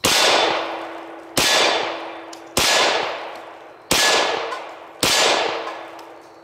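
Glock 24 long-slide .40 S&W pistol fired five times at a steady pace, about one shot every 1.3 seconds. Each shot is followed by the ring of a steel silhouette target being hit.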